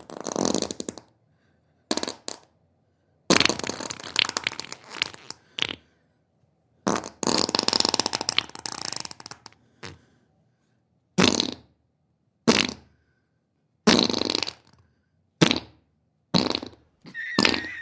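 A run of about a dozen wet fart sound effects, one after another with short silent gaps. Two are long, lasting a couple of seconds each; the rest are short blasts.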